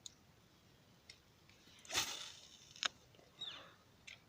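Quiet stretch broken by a few short sounds: a brief rushing noise about two seconds in, a sharp click or two later on, and a short falling chirp past the three-second mark.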